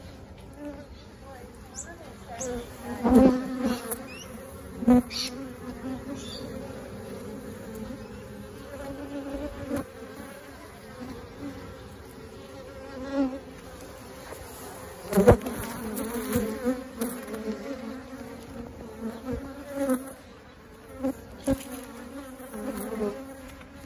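Swarm of honeybees buzzing around their cluster on a brick wall: a steady hum with louder swells as bees pass close, loudest about 3 seconds and 15 seconds in. The bees are agitated, which the uploader calls angry.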